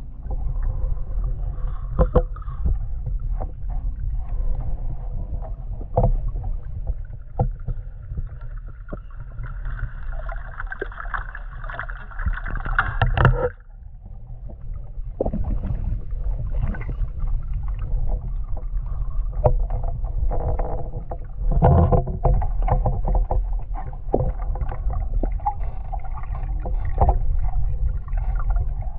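Rowing a small inflatable boat on a lake: irregular splashes and knocks of the oars in the water and against the boat over a steady low rumble, with a sudden brief dip about halfway through.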